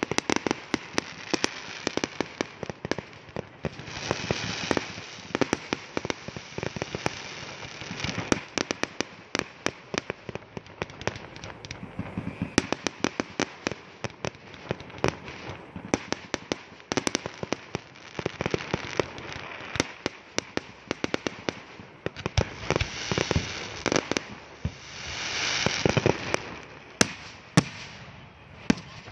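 Aerial fireworks display: a dense, irregular run of shell bursts and bangs, with two longer, denser swells of noise, a few seconds in and again near the end.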